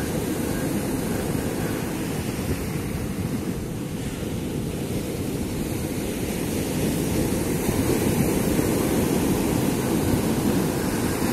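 Sea surf breaking on a sandy beach, mixed with wind buffeting the microphone: a steady low rush that swells a little past the middle.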